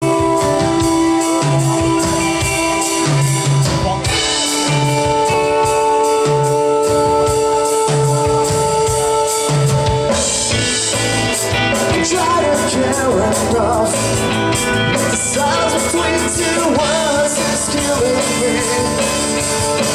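Rock-style music with drums and held chords over a repeating bass figure; a singing voice comes in about halfway through.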